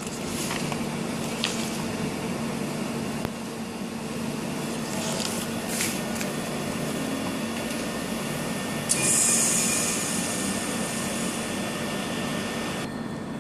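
Steady fan hum and hiss of running machinery, with a few light crinkles of the plastic bag being handled. A louder hiss swells about nine seconds in and fades over a second or so, and the hum stops abruptly near the end.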